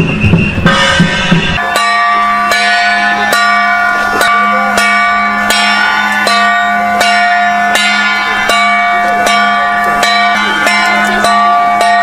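Metal bells struck in a steady rhythm, about one stroke every three-quarters of a second, each ringing on over a steady low hum. Before that, for about the first second and a half, drum-heavy band music plays.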